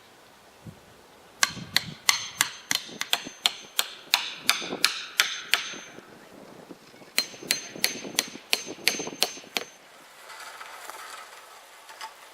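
Hammer driving nails into wood: two runs of quick strikes, about three a second, the first of a dozen or more and the second of about nine, with a pause of about a second between. A faint rustle follows near the end.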